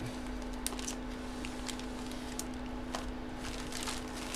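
Light irregular clicks and rustles of trading cards and their holders being handled, over a steady low electrical hum.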